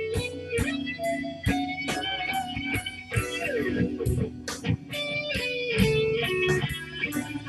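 Electric guitar playing a blues tune: a run of picked notes with string bends and slides around the middle.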